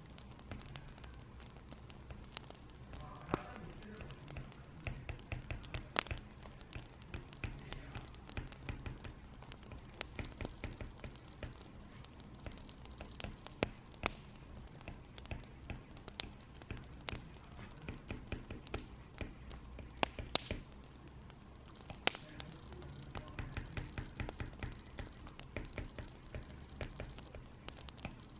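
Wood fire crackling, with irregular sharp pops and clicks over a low steady rumble; a few pops stand out louder than the rest.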